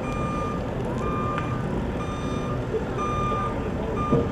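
A backing vehicle's reverse warning beeper sounds steadily, about one beep a second, over a low engine rumble.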